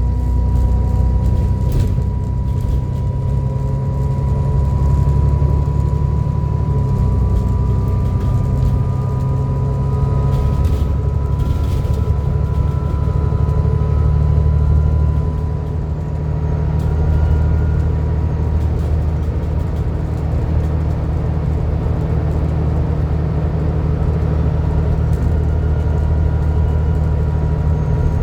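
Alexander Dennis Enviro400 double-decker bus under way, its diesel engine rumbling beneath a steady high-pitched turbo whine. A second whine climbs slowly in pitch through the middle, and the sound eases off briefly after that.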